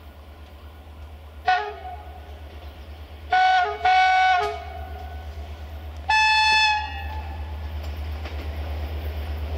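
Diesel locomotive horn sounding four blasts as the train approaches: a short one about a second and a half in, two longer ones close together around three and a half and four seconds, and a higher-pitched one a little after six seconds. After that, the rumble of the oncoming train grows steadily louder.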